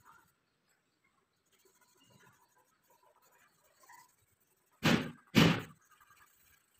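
Two loud thuds about half a second apart, near the end.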